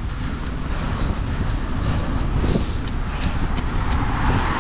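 Wind buffeting the microphone with a steady rumble, and road traffic going by, a vehicle swelling louder near the end.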